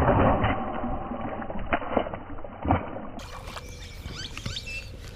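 A released bass splashing into the water, followed by a few short knocks, the loudest a sharp thump near the middle.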